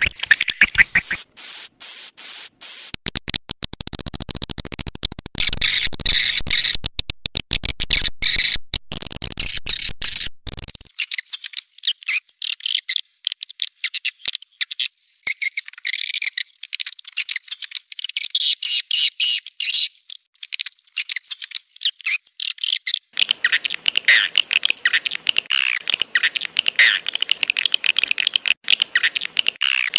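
Swiftlet call-sound recording: dense twittering and chirping of edible-nest swiftlets, with a stretch of rapid sharp clicks in the first third, played as a lure to draw swiftlets into a nesting house. The sound changes abruptly twice, about 11 and 23 seconds in, as the mixed track moves between sections.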